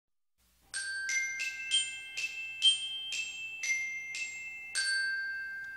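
Intro logo jingle: a short melody of about ten bell-like struck notes, like a glockenspiel, starting after a brief silence, with the last note held and ringing out.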